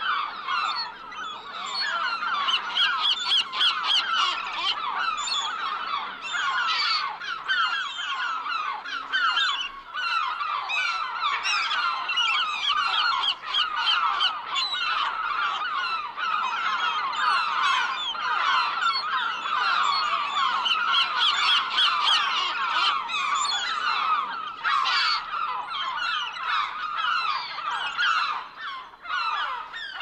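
A flock of black-headed gulls calling all at once: many short cries overlapping in a continuous clamour.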